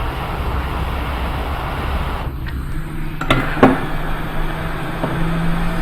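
Hot air rework station blowing air steadily while reflowing a solder joint. The rushing thins about two seconds in, then a low steady hum and two sharp clicks are heard.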